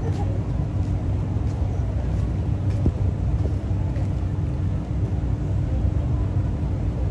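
Hummer H2's V8 engine running as the truck creeps forward at walking pace, a steady low rumble, with wind on the microphone.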